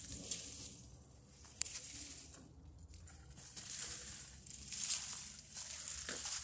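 Dry reed stalks rustling and crackling as a person pushes through them on foot, swelling and fading irregularly, with one sharp crack about a second and a half in.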